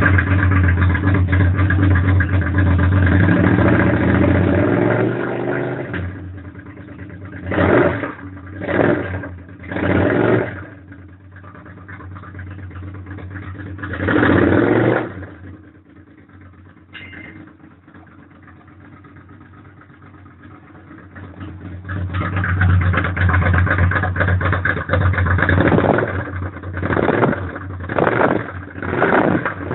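Suzuki SV650 V-twin motorcycle engine running loudly with its exhaust, blipped in sharp throttle revs. Four short revs come in the first half, then it settles back to a quieter idle. It picks up again and ends with a quick run of revs.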